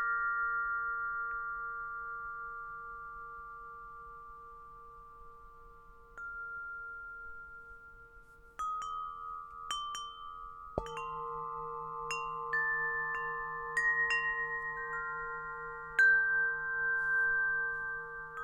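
Tuned metal wind chimes ringing. A long ring dies away over the first eight seconds, then single notes are struck about six and nine seconds in. From about eleven seconds a deeper tone with a slow pulsing wobble comes in under a cluster of overlapping chime notes.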